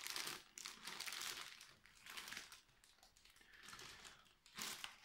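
Clear plastic packaging film crinkling in irregular bursts as it is handled around a new power sander. The bursts are loudest near the start and again near the end.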